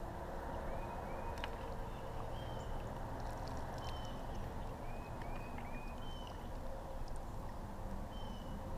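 Steady rush of flowing river water, with a small bird giving short, high chirps about ten times.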